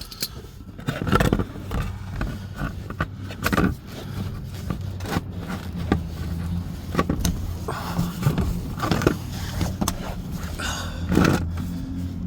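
Oil filter being unscrewed by hand beneath a car: irregular scrapes and sharp clicks of metal and plastic parts, over a steady low hum.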